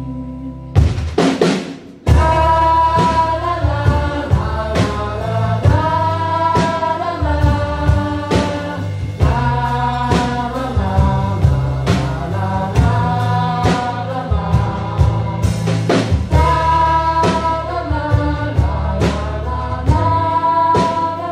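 A song with a sung vocal over a drum kit beat and bass, with a short break about two seconds in before the beat carries on.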